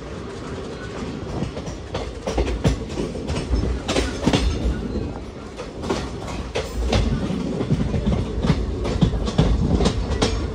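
Passenger express train running on the track: a steady low rumble with frequent sharp clacks of wheels over rail joints.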